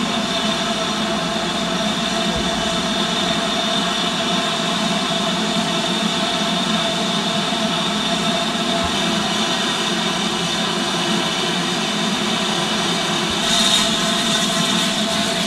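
Steady steam hiss from BR Standard Class 7 Pacific No. 70000 Britannia standing in steam, with a brief louder, higher hiss about two seconds before the end.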